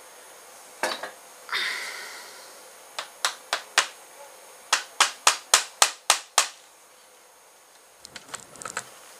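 Small hammer tapping a bent steel-wire staple into a speargun: a run of four sharp taps, then seven more, about three a second. Two knocks come first, one ringing briefly, and there is a light clatter near the end.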